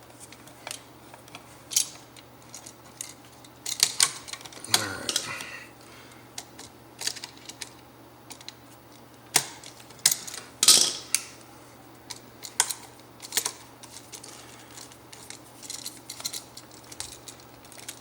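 Irregular metal clicks and scrapes of needle-nose pliers bending a stiff 12-gauge copper wire into a loop around an outlet's screw terminal, with the sharpest clicks about four and eleven seconds in.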